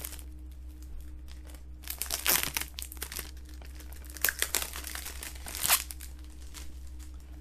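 Plastic shrink-wrap being crinkled and torn off a Blu-ray case, in irregular crackles with louder bursts about two, four and five and a half seconds in.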